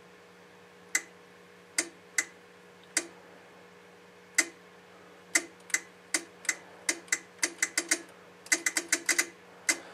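A series of sharp mechanical clicks over a faint steady hum, spaced a second or so apart at first and quickening to several a second in the second half.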